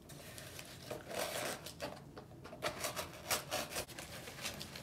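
Kraft paper sleeve around a potted plant rustling and crinkling as it is handled and opened, in short irregular scrapes and crackles.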